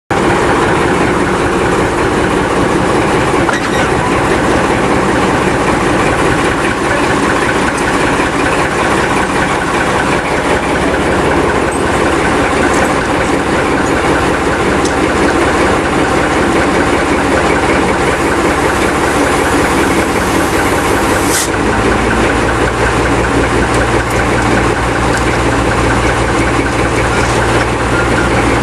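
Class 14 diesel-hydraulic shunter D9521 running, its engine heard steadily from on board the train. About 21 seconds in there is a sharp click, and a deep low rumble comes in and holds steady.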